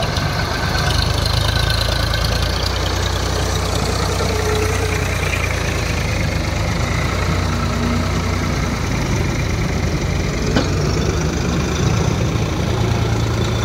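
Diesel engines running steadily: a Powertrac tractor pulling a trailer loaded with soil, with a JCB backhoe loader's engine running alongside.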